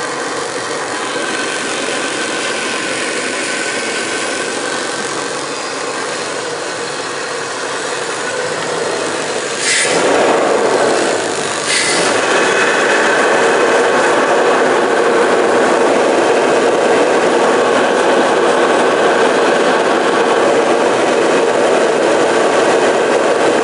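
Dodge V8 engine idling steadily at operating temperature while plain water is sprayed into its throttle body to burn off carbon. Two short hissing squirts come about ten and twelve seconds in, and after them the engine sounds louder.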